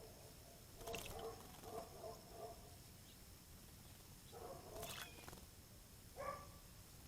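Two series of short, harsh animal calls repeated three to five times each, from an animal in the distance. Two brief splashes fall among them, at about one second and five seconds in, from a bird bathing in the bird bath.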